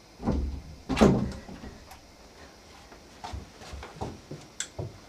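An interior door being handled and opened: a heavy knock about a second in, then a scatter of lighter clicks and knocks.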